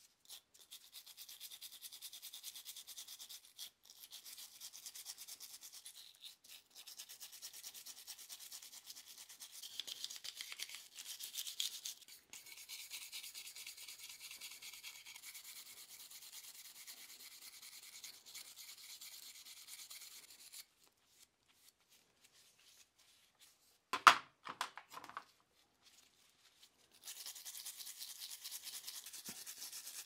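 Small stiff-bristled hand brush scrubbing a wet metal belt buckle in rapid back-and-forth strokes, working off oxide loosened by an oxalic acid soak. The scrubbing stops about two-thirds through for a sharp knock and a couple of lighter ones, then starts again near the end.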